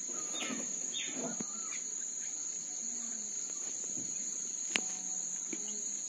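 A steady high-pitched drone of insects, with a few faint bird calls in the first two seconds and a single sharp click about five seconds in.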